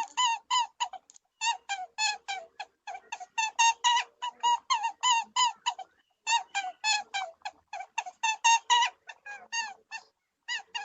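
Rapid series of short, high-pitched squeaking calls from an animal, about three or four a second, with a brief pause midway.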